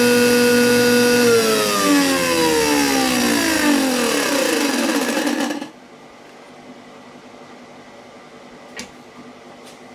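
Jet JWTS-10 table saw motor and blade running steadily, then switched off about a second in. The whine falls steadily in pitch as the saw coasts down for about four seconds, then stops. Two light metallic clicks near the end.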